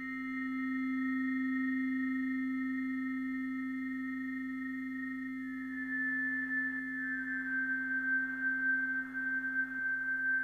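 Electronic drone music: pure, steady synthesizer tones held together, a strong low tone beneath several thin high ones. About halfway through, the top tone slides a little lower.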